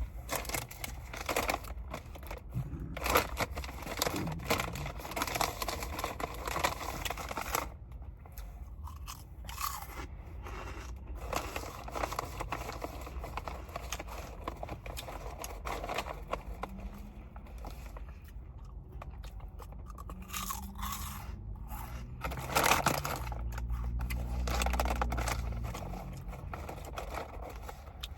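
Close-up mouth sounds of chewing noodles: wet clicks and smacks, busiest in the first third. Near the end comes a long, low burp.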